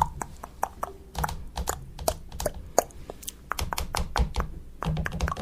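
A quick, irregular run of sharp clicks and light taps, several a second.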